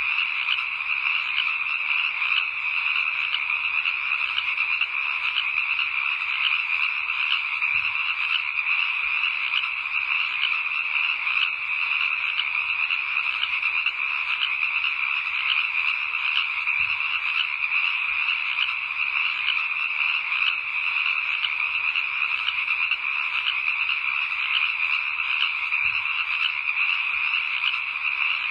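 A steady, dense chorus of calling frogs, a fast continuous trill that never lets up.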